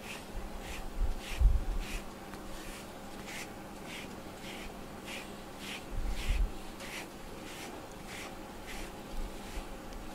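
Pink rubber grooming brush stroking through a cat's fur in a quick steady rhythm, about two or three short scratchy strokes a second. There are low bumps about a second and a half in and again around six seconds.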